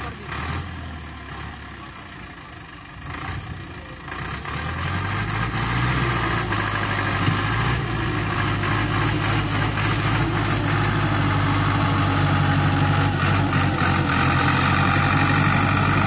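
HMT tractor's diesel engine running under load as it hauls a heavily loaded trolley; it grows louder a few seconds in, then runs steadily.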